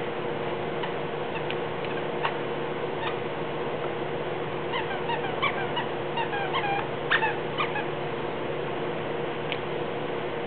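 Squeaky dog toy squeaked as a Samoyed chews it: a quick run of short high squeaks through the middle, with a few single squeaks before and after, over a steady low hum.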